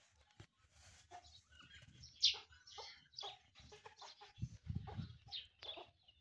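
Chickens clucking, a series of short calls with one sharp, high call about two seconds in. A brief low rumble comes about four and a half seconds in.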